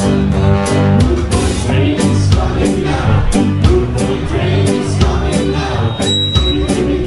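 A ska band playing live, with electric guitar, drums and a lead vocal over a steady beat.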